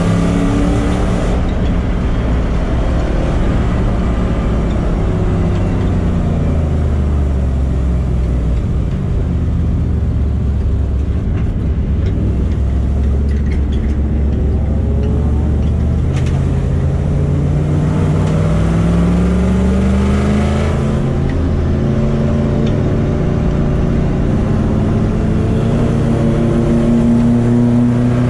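Rover SD1 race car's engine heard from inside the cabin at speed. The engine note falls over the first few seconds and runs low and steady through the middle. About two-thirds of the way in it climbs again as the car accelerates, then holds high.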